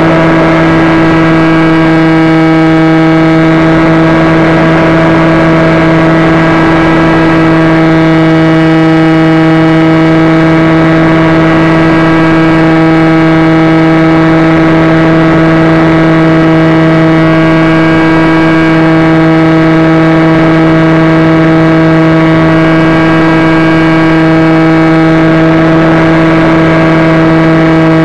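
Radio-controlled model airplane's motor and propeller running at steady throttle, loud and close through the onboard camera's microphone: one steady drone that holds its pitch.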